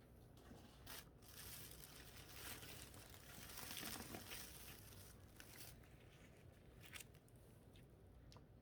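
Faint crackling and hissing from dry ice being played with, swelling to a louder hiss in the middle, with a few sharp ticks.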